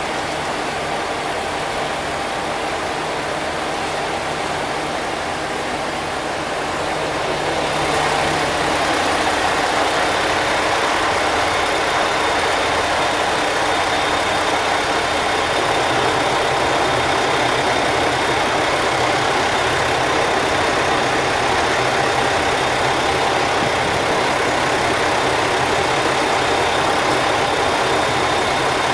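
Steady running noise of a train standing at the platform, its engine or equipment idling without a break. It grows a little louder about eight seconds in and then holds level.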